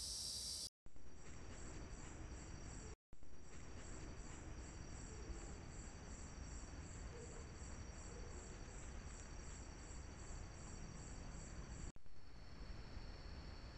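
Night insect chorus of crickets, faint: a steady high trill with a pulsing chirp about three times a second over low hiss. It drops out briefly twice near the start.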